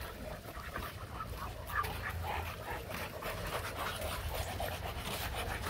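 Several dogs on leashes making short, high vocal sounds at irregular intervals, over a steady low rumble.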